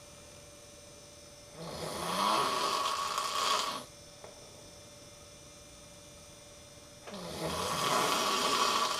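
A sleeping person snoring: two long snores about five seconds apart, each lasting about two seconds, with a faint steady hum in the pauses between breaths.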